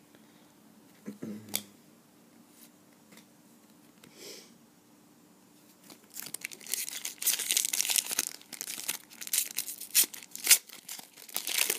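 Wrapper of a trading card pack being torn open and crinkled. It starts about halfway through after a few faint taps and runs as a dense crackling.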